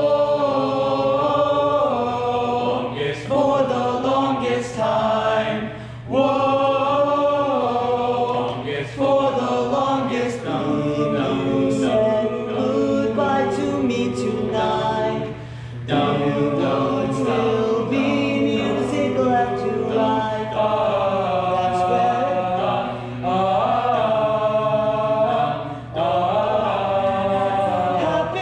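A barbershop-style vocal group of about ten teenage boys singing a cappella in harmony. The phrases run several seconds each, with brief breaks about every ten seconds.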